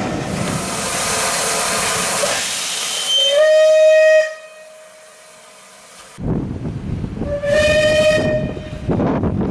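Steam locomotive whistles. A rushing hiss of steam comes first. Then a single-note whistle from Bulleid Merchant Navy class 35006 blows for about a second and stops abruptly. After a quieter stretch, a second one-second whistle at the same pitch sounds over hiss and running noise.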